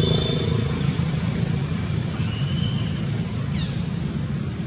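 Steady low rumble of a motor vehicle engine, slowly easing off, with a few short high chirps on top: a brief one at the start, a held whistle about two seconds in, and quick falling chirps near the end.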